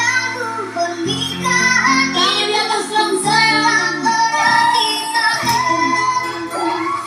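Live orgen tunggal keyboard-band music: held bass notes and chords with a melody line bending up and down above them.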